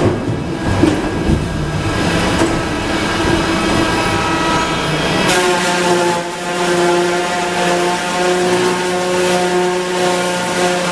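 Sawmill rosser-head debarker working a log on its toothed turning rolls. At first the log knocks and clatters on the rolls. About five seconds in, a steady hum of several held tones sets in as the cutter head strips bark from the spinning log.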